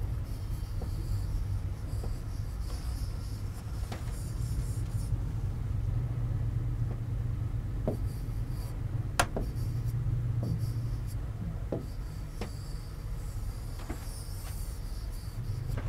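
Pen strokes scratching and rubbing lightly on a digital whiteboard, over a steady low hum, with a few short taps of the pen on the board, the sharpest about nine seconds in.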